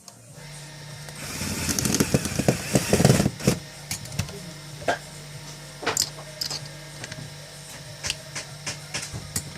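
Mechanical rattling and clattering, loudest for about two seconds near the start, then scattered sharp clicks and knocks, over a steady low hum.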